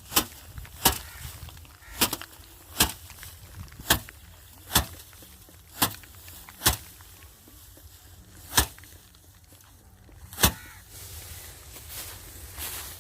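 Bundles of dried rice being beaten by hand against a hard surface to thresh out the grain: about ten sharp, heavy strikes, roughly one a second with uneven gaps, with rustling straw between them near the end.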